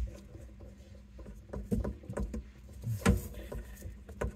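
Scattered light knocks and clicks of water-supply hoses and their fittings being handled under a kitchen sink, the loudest about three seconds in.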